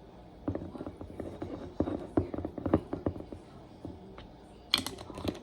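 Irregular soft knocks and thuds, about a dozen over two to three seconds, then a sharper clack near the end.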